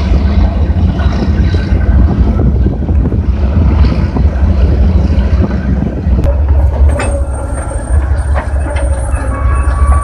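Heavy military vehicles and engines running as they roll across a floating steel pontoon bridge, a loud steady rumble. Sharp metallic clanks from the bridge deck a few times in the second half.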